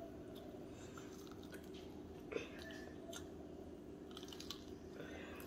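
A child chewing and biting into crispy fried eel, faint mouth and crunch sounds, with one sharp click about two seconds in, over a steady low hum.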